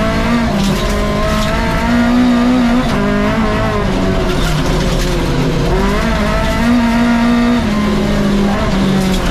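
Rally car engine driven hard at speed, its pitch repeatedly climbing and then dropping back in steps through gear changes and lifts.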